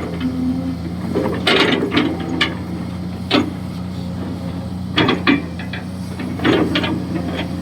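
Kobelco SK200-6 Super hydraulic excavator running steadily, with bursts of metallic clanks and knocks from the bucket and arm as it digs, a few seconds apart.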